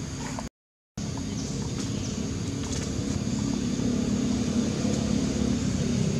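Steady low rumble of motor vehicle traffic, cut by a brief dropout to silence about half a second in.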